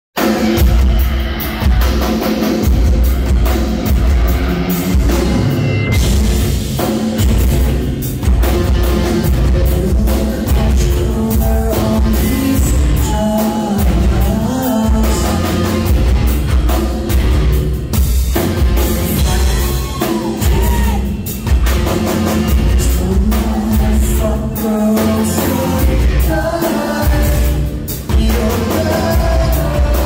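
A rock band playing live: electric guitars, bass and a drum kit keeping a steady beat, with a male lead vocalist singing over them.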